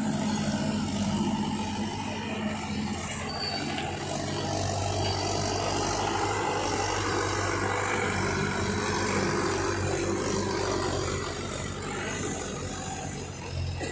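Mahindra tractor's diesel engine running steadily under load, pulling a trailer full of soil; its low engine note grows louder in the middle as it passes close by.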